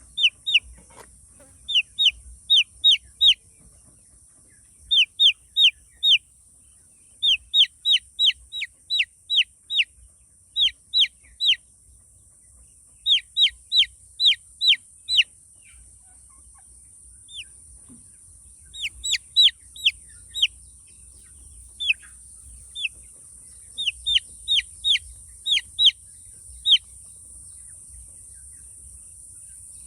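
Chicks (baby chickens) peeping: short, high peeps that each drop in pitch, coming in quick runs of four to eight with pauses of a second or more between runs.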